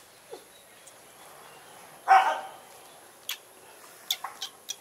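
A single short dog bark about two seconds in, followed near the end by a few sharp clicks.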